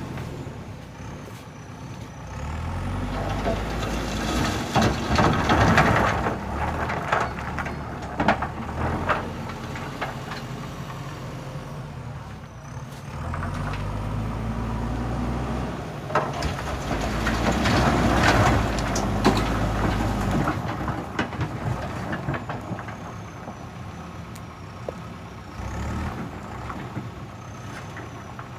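JCB backhoe loader's diesel engine running, twice rising and working harder for several seconds under load, about three seconds in and again from about thirteen seconds in. Bursts of clattering noise come at the loudest moments.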